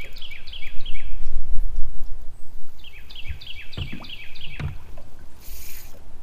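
Wind buffeting the microphone, with a songbird singing two runs of quick repeated down-slurred notes. A couple of knocks come about four seconds in, and a short hiss near the end.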